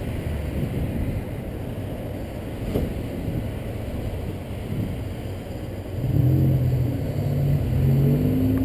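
Steady, muffled low rumble of car engines and road traffic, growing louder about six seconds in.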